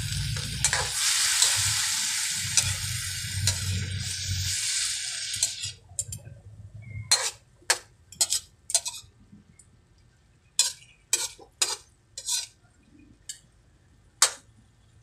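Chicken pieces sautéing with onion, ginger and tomato in a metal wok, sizzling as a metal spatula stirs them. The sizzle cuts off suddenly about five seconds in. After that come a dozen or so separate scrapes and clinks of the spatula against the wok.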